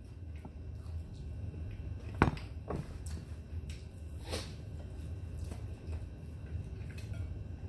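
Eating crispy fried chicken at a table: a few sharp clicks and knocks of biting, handling and tableware, the loudest about two seconds in, over a steady low hum.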